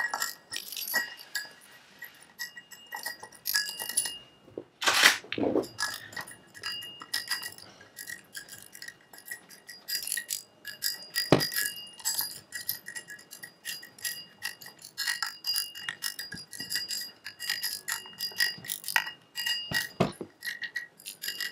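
Steel puller plate and M6 cap screws clicking and clinking against a Rotax engine's ring gear as the screws are threaded in, with light metallic ringing after many of the clicks.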